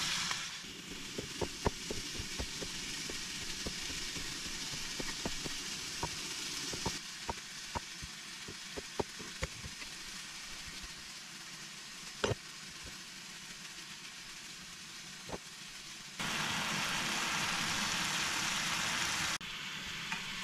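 Diced chicken and onion sizzling in a cast-iron skillet, a steady frying hiss with scattered sharp taps and knocks of utensils. The sizzle gets louder for a few seconds near the end.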